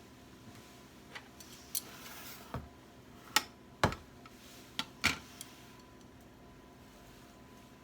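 Kitchen work sounds: about seven scattered light clicks and knocks, as of utensils or containers being set down and handled, the loudest a duller knock a little under four seconds in. After about five and a half seconds only the faint steady background remains.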